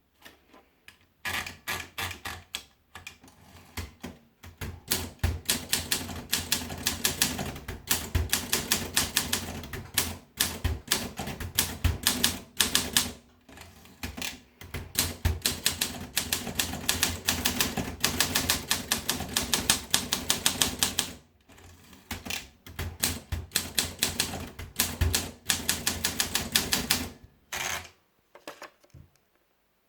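Olympia SM3 Deluxe manual portable typewriter being typed on: fast runs of sharp key strikes with short pauses between them, a few heavier thuds among the keystrokes. The typing stops a couple of seconds before the end.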